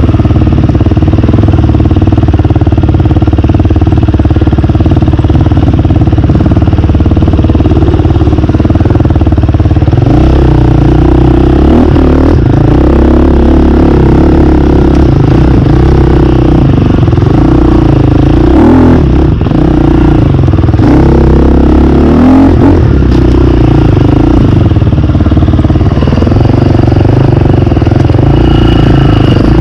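KTM dirt bike engine running loud and close to the microphone as the bike is ridden, its pitch rising and falling over and over with the throttle.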